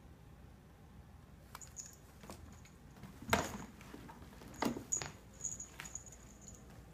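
Cat scrambling out of a plastic storage bin: a few sharp knocks and scrapes against the plastic and cardboard, the loudest about three seconds in, then light steps on a wooden floor.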